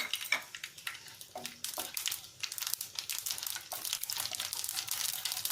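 Mustard seeds, fennel and cumin crackling and spluttering in hot oil in a kadhai: a dense run of sharp little pops that grows busier toward the end.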